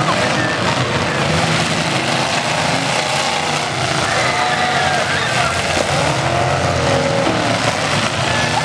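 Several demolition derby cars' engines revving hard together, their pitches rising and falling over one another in a loud, continuous din.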